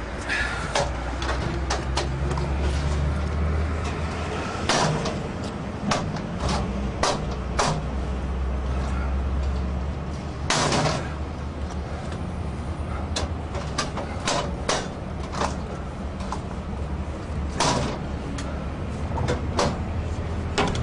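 A 3 ft steel pry bar levering and knocking against the lock stile of an Xpanda steel expanding security gate, trying to force it open: irregular metallic clanks and knocks, the loudest a little past halfway.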